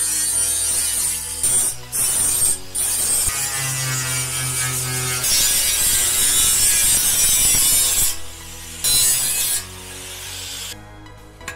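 Electronic background music with a stepping bass line, under a loud harsh rasping mechanical noise that comes and goes with short sharp breaks.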